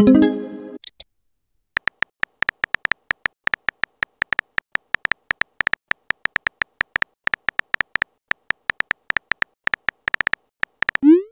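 Phone keyboard tap clicks from a texting app, fast and irregular for about nine seconds as a message is typed. At the start a short cluster of electronic tones sounds as a message arrives, and near the end a quick rising swoosh.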